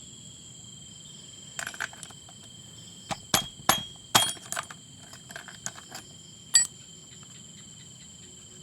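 Several sharp clicks and knocks, scattered irregularly over a few seconds, like small metal parts or tools being handled and set down. Behind them runs a steady, high cricket trill.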